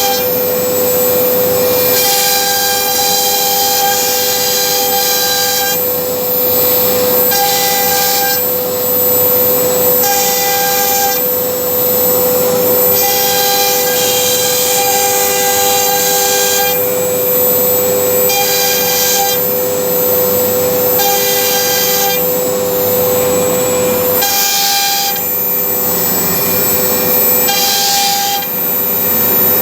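CNC router cutting MDF melamine board: the spindle holds a steady whine, and a higher whine switches on and off every one to three seconds as the machine moves through the cut.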